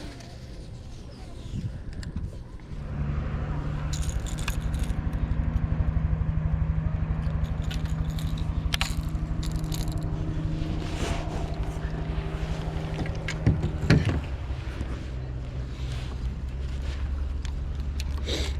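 Boat motor starting up about three seconds in and then running steadily at a low pitch, with a couple of sharp knocks about two-thirds of the way through.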